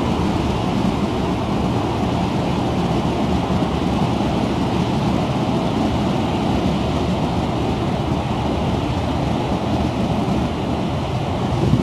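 Strong wind buffeting the microphone on a ferry's open deck, a steady low rushing rumble, mixed with the ship's engine running and its wake churning.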